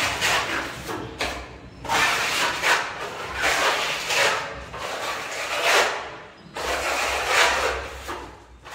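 Metal putty knives scraping across a cement wall as two workers spread white wall putty, in uneven strokes one or two a second.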